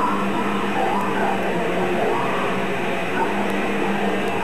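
Live extreme metal band playing at full volume: heavily distorted guitars and drums blurring into a dense, steady wall of sound on an overloaded camcorder recording.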